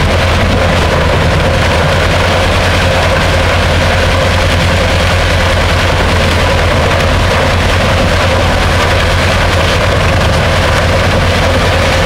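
Large engine of a wood chipper running steadily at an even pitch.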